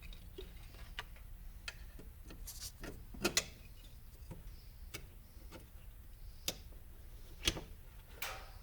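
Small metal parts of a drive hub (pin, spring, pressure plate) clicking and tapping as they are handled and fitted, in irregular single taps, the loudest about three seconds in.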